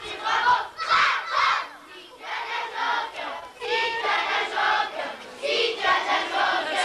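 A large group of young children singing together in short, shouted phrases.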